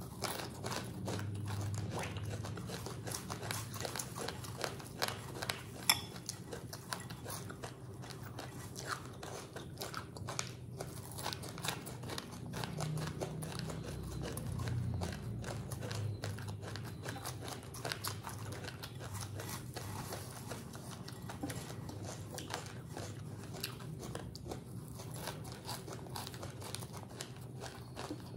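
Chewing mouthfuls of puffed rice mixed with grated coconut and sugar: a dense, continuous crackle of crunching, with one sharper, louder crunch about six seconds in.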